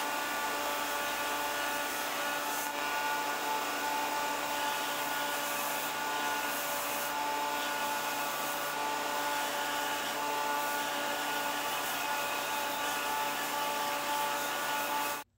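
Narrow vertical bench belt sander running steadily, with a wooden canoe yoke being shaped against the moving belt. The sound cuts off suddenly at the very end.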